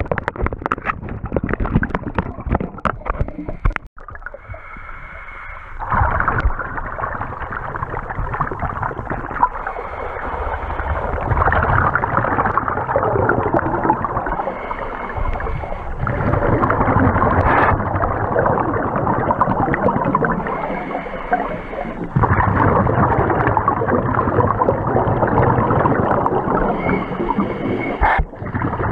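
Underwater sound of scuba breathing: exhaled bubbles from a regulator rushing and gurgling in long swells every few seconds, with quieter stretches between. For the first few seconds there are rapid knocks and clicks of the camera being handled.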